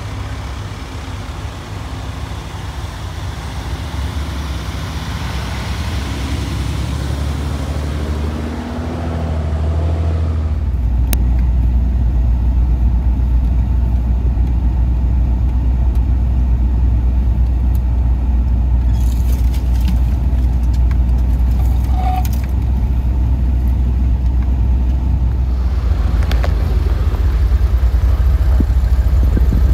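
For the first ten seconds or so, a Jeep's engine running and revving as it drives up a snowy trail, heard from outside. About ten seconds in, the sound switches to a steady low engine drone heard inside a Land Rover Discovery's cabin as it drives through snow, with a few brief clicks and scrapes.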